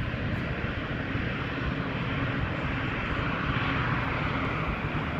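Jet airliner engines at an airport, a steady rumble and broad hiss that swells slightly about three to four seconds in.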